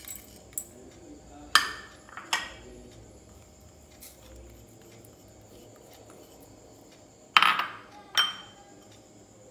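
White plates and a bowl knocking against the rim of a stainless-steel mixer-grinder jar as spices are tipped in. Four sharp clinks, each with a short ring: two about a second and a half in, two near the end.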